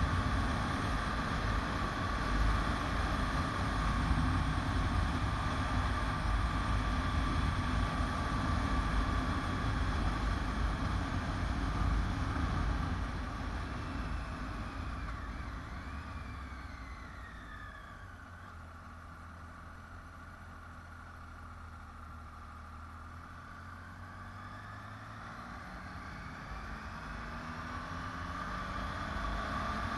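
Motorcycle engine and wind noise heard from on the bike. The engine note falls and the sound quietens from about halfway in as the bike slows, then the pitch climbs and it gets louder again near the end as it speeds back up.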